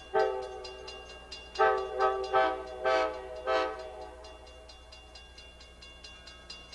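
Amtrak cab car's Nathan K5LA five-chime air horn blowing several blasts in the first four seconds for the grade crossing, a long first blast then shorter ones. A grade-crossing warning bell rings steadily throughout.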